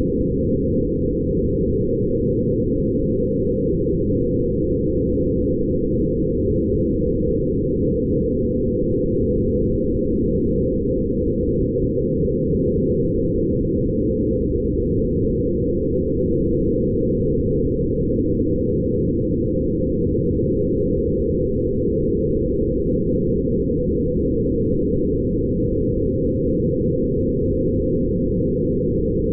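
Low, steady, dense electronic drone of many close-packed tones, all in the low register with nothing higher: photographs of light passed through sound-editing software and shaped into a meditative ambient tone.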